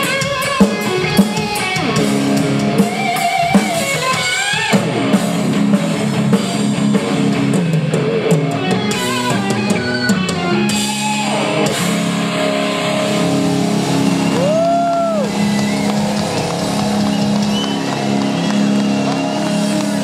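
Heavy metal band playing live: a lead electric guitar solo with bent and held notes over the drum kit and rhythm guitar. One long note is bent up and let back down near the three-quarter mark.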